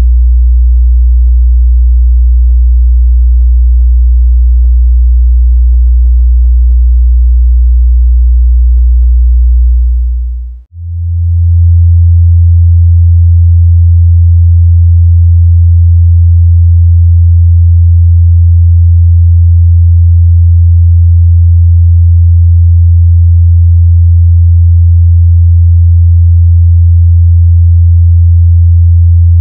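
Steady 60 Hz sine-wave test tone, which cuts out about ten seconds in and gives way to a steady 85 Hz sine-wave test tone.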